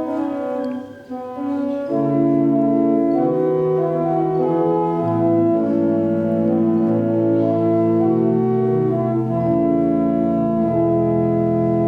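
Organ playing sustained chords, an instrumental interlude between verses of a hymn.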